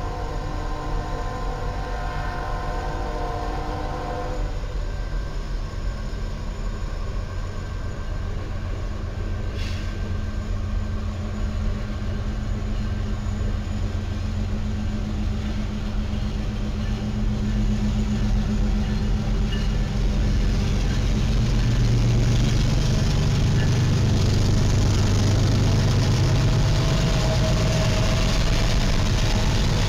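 Diesel freight locomotives' air horn sounds a steady chord for about four seconds, then the engines' deep drone grows louder as the locomotives pass.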